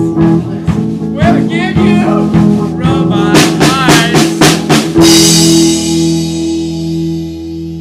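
Closing bars of a rock song: singing over guitar and drums, then a quick run of about six drum hits, and a final held chord that rings out and slowly fades.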